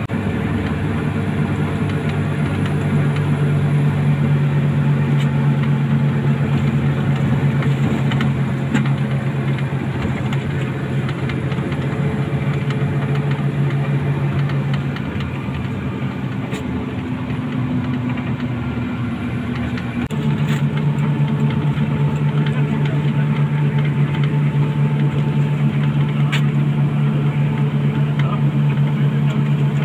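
Front-engined Mercedes-Benz OF 1623 bus heard from inside the passenger cabin while cruising: a steady diesel engine drone with road noise underneath. The drone eases and shifts around the middle, then changes abruptly about twenty seconds in.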